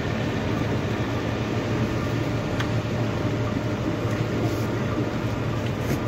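Heavy machinery running steadily: a continuous engine drone with a low hum, with a faint click about two and a half seconds in.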